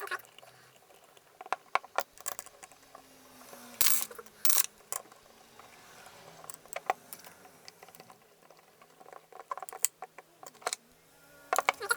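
Irregular small metallic clicks and taps of a 2 mm Allen key and hex screws being worked into a DDC pump top and heatsink housing, with two louder clatters about four seconds in.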